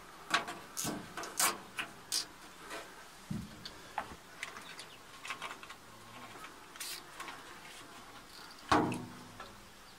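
Hand work on wiring: scattered small clicks and rustles as cables and a plastic zip tie are handled and pulled through a hole in sheet metal, with a louder knock near the end.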